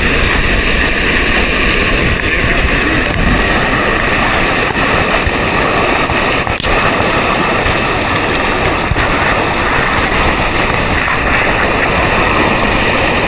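Floodwater rushing and churning in a steady, loud rush.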